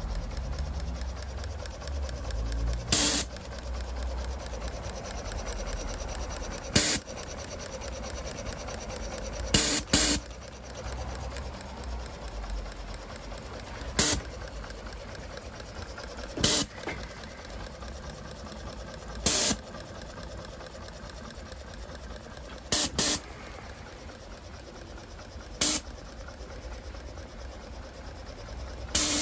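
Gauge 1 live-steam model of an LMS 4F 0-6-0 locomotive under steam on a stand: a steady hiss, broken by short, loud bursts of steam about every three seconds.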